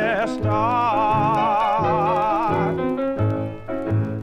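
Blues record playing: a male singer holds one long, wavering note over the accompaniment. A little past halfway the voice stops, and the piano plays on alone in a run of separate chords.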